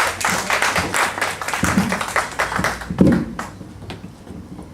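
Small audience applauding, fading out about three and a half seconds in.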